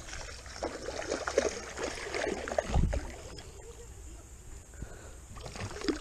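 Water splashing and sloshing in irregular bursts as a large hooked turtle thrashes at the surface on the line, busiest in the first half with a low thump about three seconds in.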